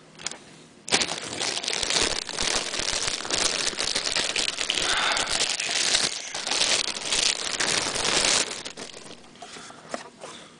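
Clear plastic bag crinkling and rustling as a wireless router is pulled out of it and unwrapped. The crinkling starts abruptly about a second in and eases off near the end.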